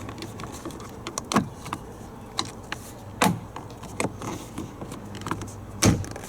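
Scattered clicks and knocks of plastic trim clips and a side plate being pressed into a van door panel, the loudest snaps about a second and a half, three seconds and six seconds in, over a steady low hum.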